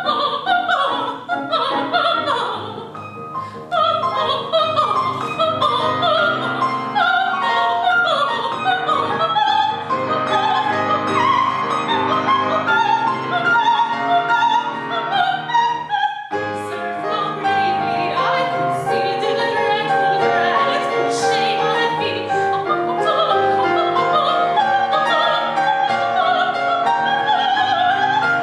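Operatic soprano singing a fast-moving coloratura aria line with piano accompaniment. The music breaks off briefly about sixteen seconds in, then voice and piano resume on higher, more sustained notes.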